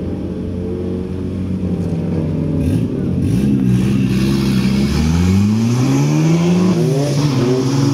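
Drift car engine running, then revved up and down several times from about halfway through, its pitch climbing and dropping again and again.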